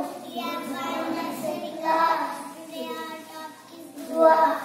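A young child singing in a high voice, phrase by phrase, with short breaks between phrases.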